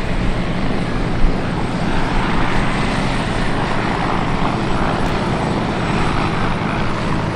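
Westland Whirlwind HAR.10 helicopter flying past, its Gnome turboshaft engine and rotor giving a steady drone that swells a little mid-way through the pass.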